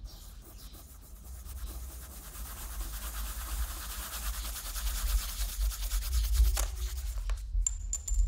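Scratchy sketching strokes on sketchbook paper, growing denser and louder over the first several seconds, with one sharp tap near the end, over a low steady rumble.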